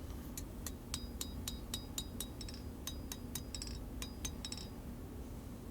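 Light, quick blacksmith's hammer taps on the hot steel blade over the anvil, about four a second, each with a short metallic ring. They stop a little before the end.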